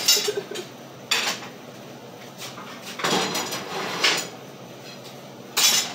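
Pieces of steel stock clanking and clattering as they are handled on metal work tables: a handful of sharp clanks at irregular intervals, with a longer clatter around the middle.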